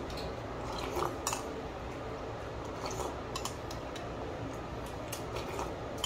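Metal spoon clinking and scraping against a ceramic bowl, a few short, scattered clicks over steady low room noise.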